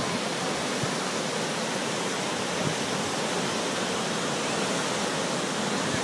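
Ocean surf breaking and washing up on a sandy beach: a steady, even rush of water noise.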